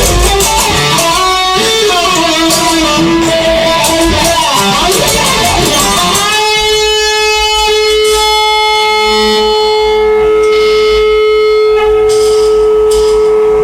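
Instrumental guitar break in a song: quick, moving lead notes for about six seconds, then a single note held and ringing for the rest.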